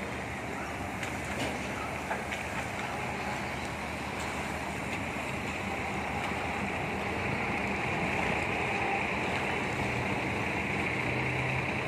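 Double-decker express coach moving slowly off, its diesel engine running under a steady rushing noise that grows a little louder past the halfway point.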